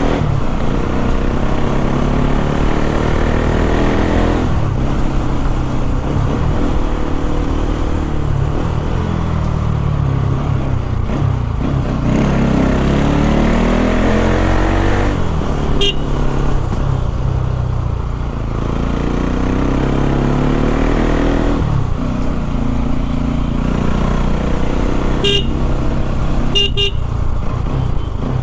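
Bajaj Pulsar NS200's single-cylinder engine running through an aftermarket Akrapovic exhaust fitted with a dB killer, repeatedly revving up and easing off as the bike rides, its pitch rising again and again. Short horn beeps sound about halfway through, and a few more come near the end.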